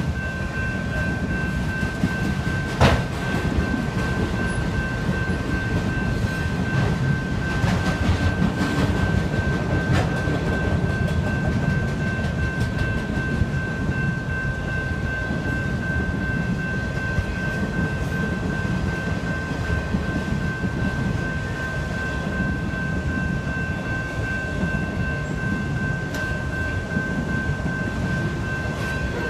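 Freight train of autorack cars rolling steadily through a grade crossing, a dense rumble of wheels on rail with a sharp knock about three seconds in. Over it, the crossing's electronic bell rings at a steady pitch.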